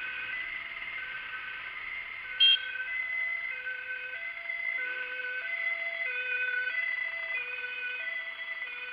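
Ambulance two-tone siren, alternating between a low and a high note about every half second. A brief loud tone cuts in about two and a half seconds in.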